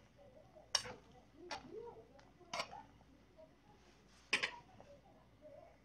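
A pot of chicken gizzards at a rolling boil, parboiled with soju to remove their odour: soft bubbling with four sharp pops spread through the few seconds.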